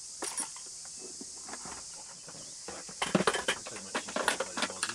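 Steady, high-pitched insect chorus. From about three seconds in, a quick run of sharp clicks and knocks breaks over it.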